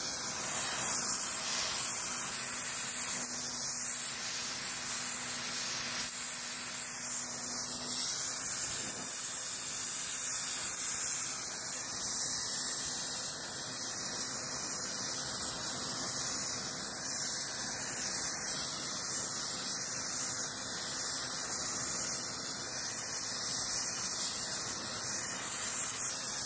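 Gas torch flame hissing steadily while it preheats a cast-iron bearing housing for brazing.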